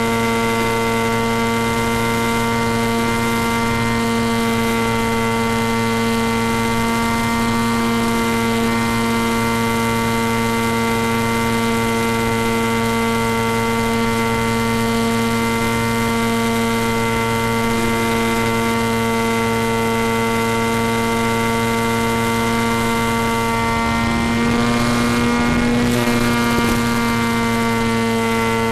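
Electric motor and propeller of a small FPV model plane running at steady cruise throttle, heard through the onboard microphone as a constant drone. The pitch shifts briefly and the sound roughens about 25 seconds in.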